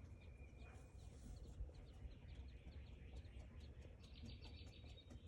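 Faint, high-pitched bird chirps and peeps over a low background rumble. A thin, steady whistle sounds near the start, and a quick run of chirps comes about four seconds in.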